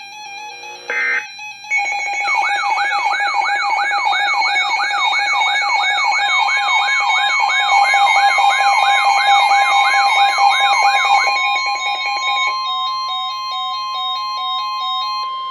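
Electronic alert tones: a fast warbling siren sweep, about two to three cycles a second, over steady tones and stepped beeping melodies. It ends on a single steady tone near 1 kHz that cuts off sharply near the end.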